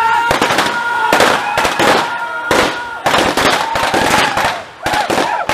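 A rapid, irregular volley of gunshots, a dozen or more, fired back and forth in a staged shootout. A steady high tone holds beneath the shots for about the first three seconds.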